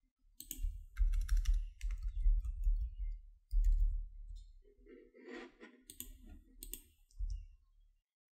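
Typing on a laptop keyboard: a run of keystrokes with dull thuds, then a few scattered clicks.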